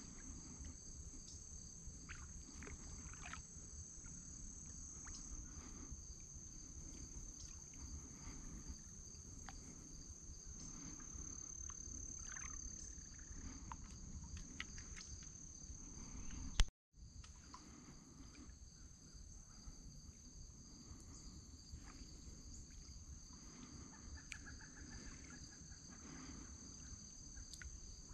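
Steady high-pitched chorus of insects, crickets trilling, over a faint low rumble. About two-thirds of the way through there is a short loud pop, then the sound drops out completely for a split second before the chorus returns.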